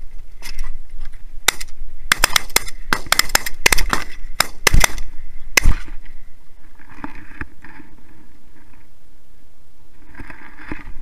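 A volley of shotgun fire at geese from several hunters: about a dozen loud shots in quick, uneven succession over some five seconds, the last few the loudest.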